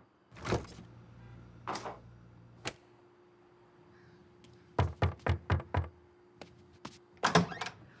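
A quick run of about six knocks on a wooden door about five seconds in, followed near the end by a louder clatter as the door is opened. A few separate thumps and a low, steady hum come before the knocking.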